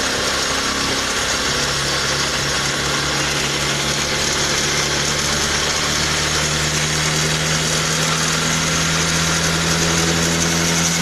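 Mahindra Gusto scooter's single-cylinder engine running at a fast idle while its carburettor air screw is slowly turned out to find the highest idle speed, during idle mixture adjustment. Its note shifts about a second and a half in and then holds steady.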